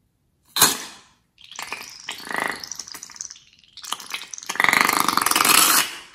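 Scissors snip the tip off a slime-filled balloon with a sharp cut, then slime is squeezed out of the cut neck in two runs of rapid wet sputtering and squelching, the second longer and louder.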